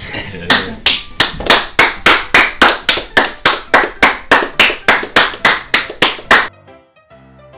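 Small audience clapping in an even rhythm, about four claps a second, which stops suddenly near the end; soft keyboard music follows.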